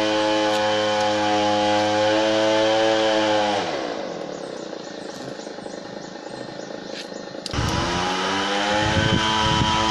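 A small engine running steadily, dropping in pitch and level about three and a half seconds in, then coming back abruptly and rising again about two thirds of the way through.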